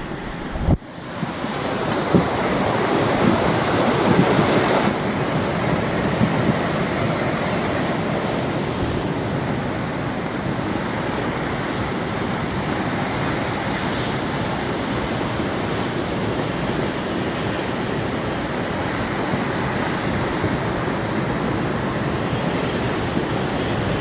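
Rushing water of a river running high and swollen after rain, a steady, loud rush, with a brief click and dropout just under a second in.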